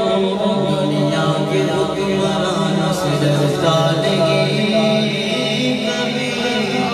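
Men's voices singing a naat a cappella through a microphone and PA, drawing out long held notes with no instruments.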